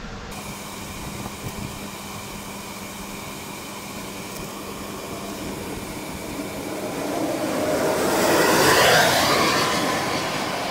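A passing vehicle: a broad engine-and-rush sound that swells to a peak about eight to nine seconds in and then fades, over a steady background hum.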